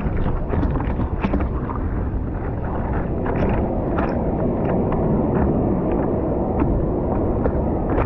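Wind buffeting the microphone of a camera at water level on a surfboard, a steady dull noise, with frequent small splashes and slaps of water against the board.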